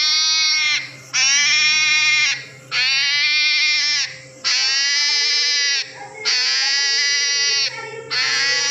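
Hedgehog screaming: a run of loud, high-pitched, baby-like cries, each held for about a second and a half with a brief break between, six in a row at a steady pace.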